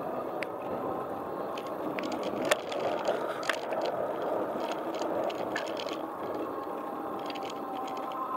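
Wheels rolling on asphalt during a street ride, a steady rushing noise with light rattles and ticks from the frame, and a sharp click about two and a half seconds in.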